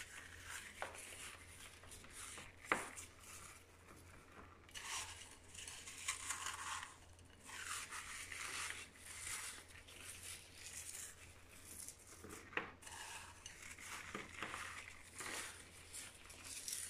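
Faint, intermittent dry rustling and crunching as fingers pinch sugared breadcrumbs from a bowl and rub them out over buttered strudel dough, with a few light clicks.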